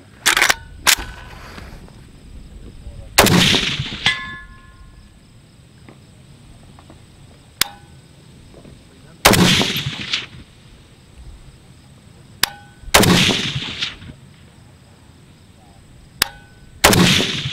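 Five shots from a 10.5-inch-barrel WBP Mini Jack AK pistol firing 7.62x39 Wolf 122 grain FMJ, spaced a few seconds apart, each loud crack trailing off in echo. Sharper, briefly ringing metallic pings fall between the shots.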